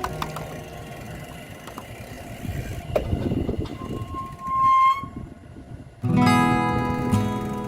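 Background music: a few seconds of quieter, noisy sound with a brief steady high tone, then a new song with guitar starts abruptly about six seconds in.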